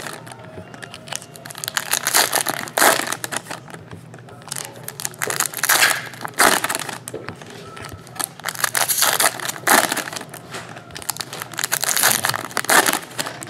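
Foil wrappers of 2012 Panini Prizm football card packs crinkling and crumpling in irregular bursts as the packs are opened by hand.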